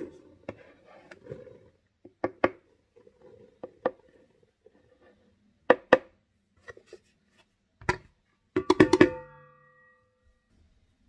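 Bread flour poured from a plastic bowl into a stainless steel stand-mixer bowl, with scattered knocks and taps of the bowls against each other. A quick cluster of taps about nine seconds in leaves the steel bowl ringing briefly.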